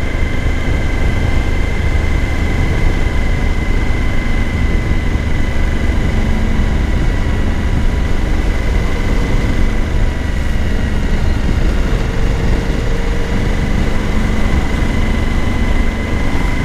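Suzuki V-Strom 1000's V-twin engine and wind rush while the motorcycle is ridden, a steady, even drone.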